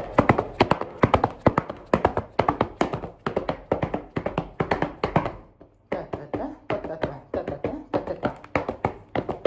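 Black leather boots stamping and tapping on a hard floor in quick rhythmic Chuvash folk dance steps, several strikes a second, with a short pause about halfway through before the stepping resumes.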